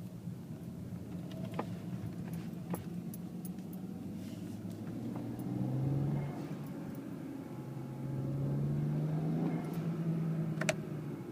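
BMW 335i turbocharged inline-six running with the throttle varying, its note swelling and easing, with a few sharp clicks, the loudest near the end. The car carries an aftermarket Tial blow-off valve and has an odd whoosh on lift-off that the owner takes for boost not venting properly.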